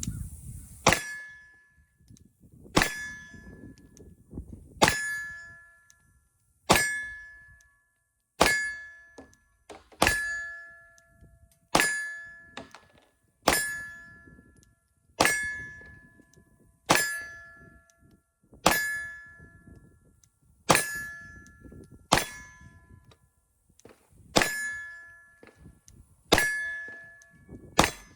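9mm Glock 45 pistol fired in slow, steady single shots, about one every two seconds, some sixteen in all. Each shot is followed by a short metallic ring.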